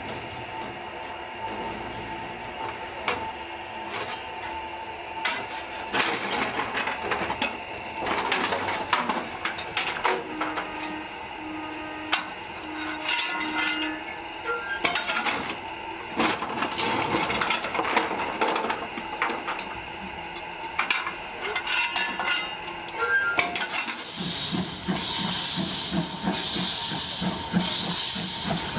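Cab sounds of the Chiemsee-Bahn steam tram locomotive: scattered knocks and clanks of the firing and controls over a steady background hiss. About 24 seconds in comes a loud, continuous hiss of steam with a fast pulsing beneath it as the engine gets under way with steam blowing from the front.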